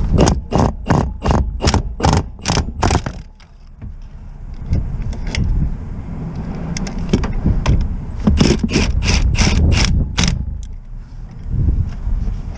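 Hand ratchet clicking in two runs of evenly spaced clicks, about three a second: one over the first three seconds, another starting around eight seconds in.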